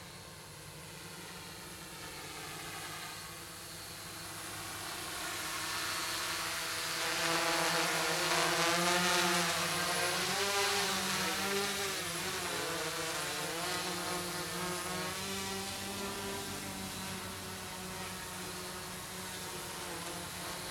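Quadcopter's four DYS D4215 650kv brushless motors spinning 10-inch propellers, a buzzing whine with its pitch wavering up and down as the throttle changes. It grows louder as the craft comes in low and close about halfway through, then eases off as it moves away.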